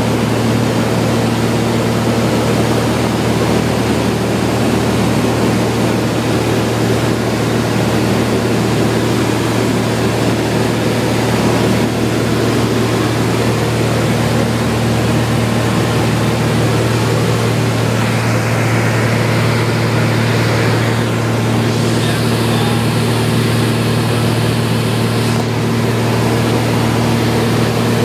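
Steady drone of a Cessna 182 Skylane's piston engine and propeller heard inside the cabin in flight, with a low hum and rushing air noise.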